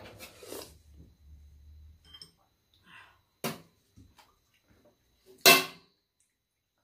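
Eating sounds at a meal: metal spoons and chopsticks clinking on bowls and soup being sipped, with a sharp click about three and a half seconds in and a louder sharp knock about five and a half seconds in.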